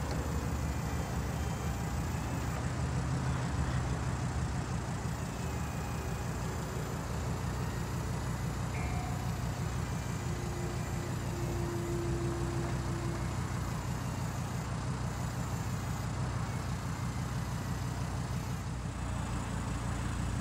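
Audi R8 V10 Spyder's 5.2-litre V10 idling steadily while its power soft top is raised, with a brief thin whine about halfway through.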